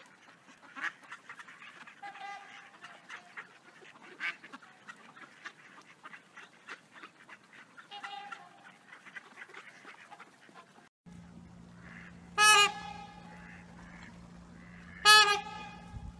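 A mixed flock of geese and ducks calling: scattered quacks and honks with small clicks. About 11 s in the sound changes to a steady hum, and two loud horn-like honks come about two and a half seconds apart.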